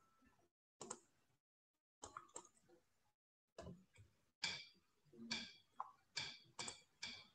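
Faint, scattered clicks of a computer mouse and keyboard, about a dozen short taps with more of them in the second half.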